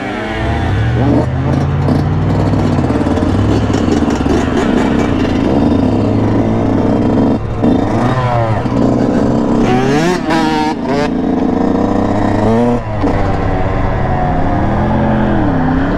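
Dirt bike engine heard close up from the rider's helmet as it is ridden, revs climbing and falling again and again with brief dips about halfway through and near the end, over wind noise.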